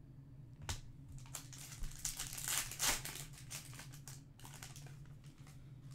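Foil trading-card pack crinkling as it is torn open by hand, loudest in the middle. A single click comes just before, under a second in.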